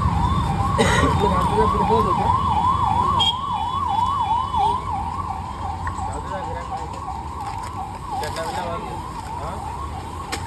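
Siren in a rapid yelp, about three rising sweeps a second, over a low rumble of street traffic; it grows fainter after a few seconds.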